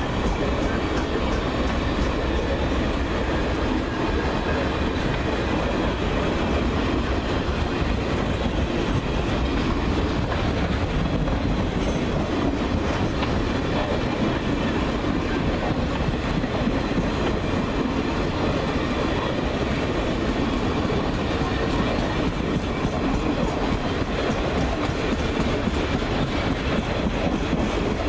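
Passenger cars of a long train rolling past at close range: a steady noise of steel wheels running on the rails.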